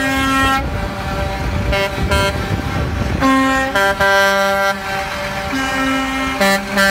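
Concrete mixer trucks sounding their air horns in repeated blasts of different lengths, several horns overlapping, over the low rumble of the trucks' diesel engines.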